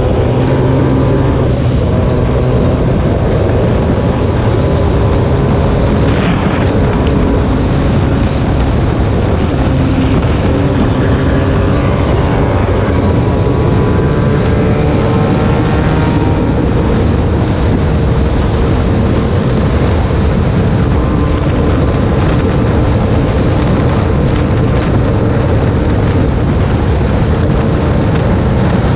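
Vehicle engine running while driving, its pitch shifting now and then, over loud steady road and wind noise.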